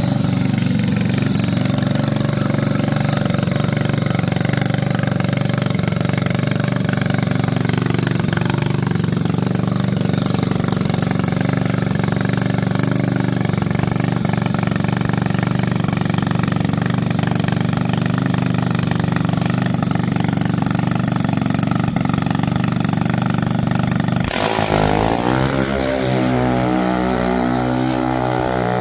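An engine running steadily at idle, then about twenty-four seconds in a sudden sharp change after which the engine note shifts and moves in pitch.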